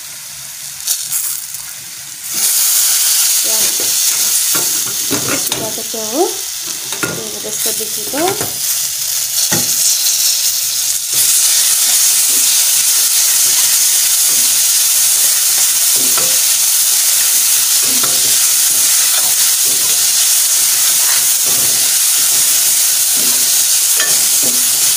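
Potatoes and mushrooms frying in a little oil in a metal kadai, sizzling, with a ladle clicking and squeaking as it scrapes the pan. The sizzle jumps louder a couple of seconds in and again about eleven seconds in, then holds as a steady loud hiss.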